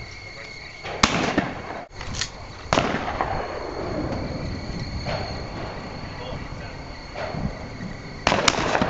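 Shotgun shots fired at clay targets, each a sharp bang with a rolling echo. There is one about a second in, another nearly two seconds later, and two in quick succession near the end, with fainter shots in between.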